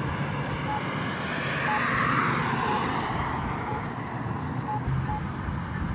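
Campbell accessible pedestrian signal pushbutton sounding its locator tone: short, high beeps about once a second, marking the wait interval before the walk signal. A passing car swells and fades in the background near the middle.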